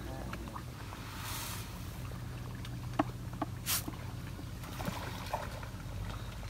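Snakehead fish splashing at the pond surface: a short splash about a second in and a sharper one a little before four seconds, over a steady low motor hum.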